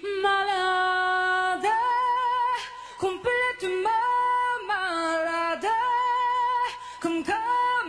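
A woman singing a slow French ballad live into a microphone: long held notes with vibrato that rise and fall between a low and a high register, broken by short pauses between phrases. Little or no accompaniment is heard under the voice.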